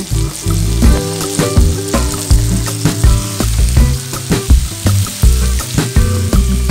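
Sliced eggplant and peppers sizzling in a frying pan as a wooden spatula stirs them, with frequent scrapes and knocks of the spatula against the pan. Background music with a steady beat runs underneath.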